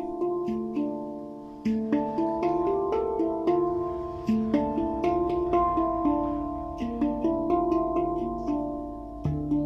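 A plucked string instrument played at a slow, even pace: notes picked one after another, each struck sharply and left to ring over the next.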